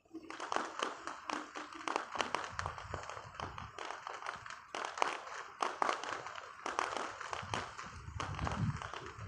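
Firecrackers popping in a rapid, irregular crackle, with a few deeper thuds among the cracks.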